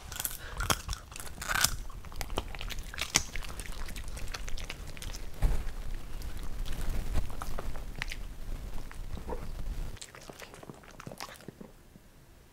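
Italian greyhounds biting and chewing popcorn from a hand: a quick run of dry crunches that thins out and stops about ten seconds in.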